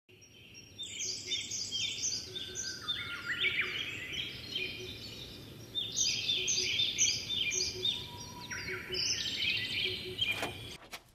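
Birds chirping: many quick, repeated high calls overlapping over a steady hiss, which stop shortly before the end.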